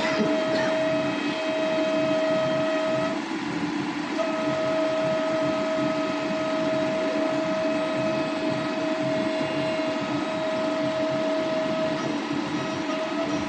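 DPS X5M 5-axis dental milling machine cutting, its high-speed spindle giving a steady high whine over a hiss of machining noise. The whine drops away for about a second a few seconds in, then returns and holds.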